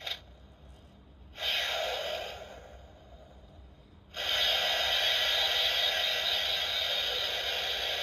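Electronic sound effects from a DX Kamen Rider Zero-One toy, a Zetsumerise Key at work in its driver. There is a short blip, a burst about a second and a half in, and then from about four seconds in a steady, loud effect that holds as the toy's light turns blue.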